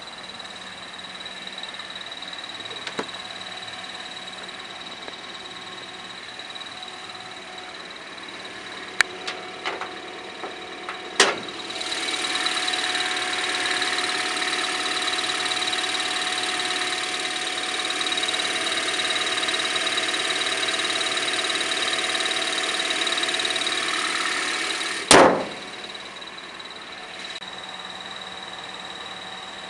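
2010 Toyota Corolla idling in neutral, with a high chirping from its worn clutch throwout bearing, which chirps only when the clutch is fully released. A few sharp clicks come about nine to eleven seconds in. The noise then grows louder and rougher for about fourteen seconds, ends with a sharp knock, and settles back to the quieter idle.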